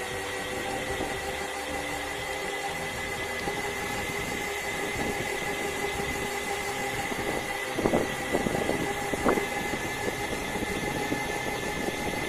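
Twin Flipsky 6384 brushless belt-drive motors of a 12 V electric go-kart whining at a steady pitch while cruising, over tyre and road noise. A couple of brief louder clatters come about two-thirds of the way in.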